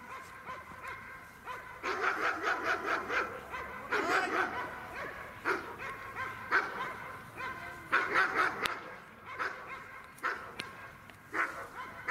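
A dog barking in quick runs of barks and single barks, over and over.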